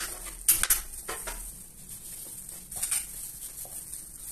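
Knife slicing a carrot into rounds on a plastic cutting board: several sharp taps of the blade hitting the board, irregularly spaced.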